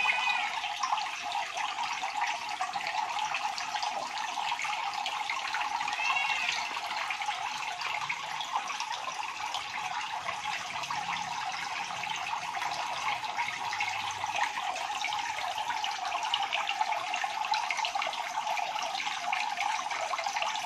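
Steady rush of bubbling, churning water in a goldfish aquarium, its surface stirred by bubbles.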